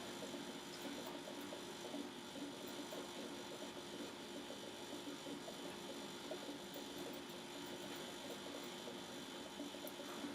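Steady low electrical hum of background room tone, with a few faint clicks.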